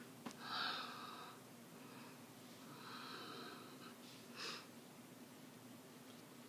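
A woman's quiet breathing and mouth noises: a few soft, breathy puffs, one near the start, one around the middle and a short one later, over a faint steady hum.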